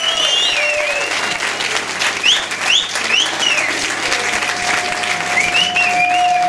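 Audience applauding, with high-pitched calls rising over the clapping.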